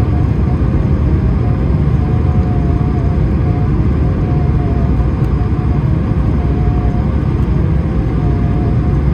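Airbus A220-300 cabin noise in flight: a steady rumble of airflow and its Pratt & Whitney PW1500G geared turbofan engines, with a faint wavering tone above it.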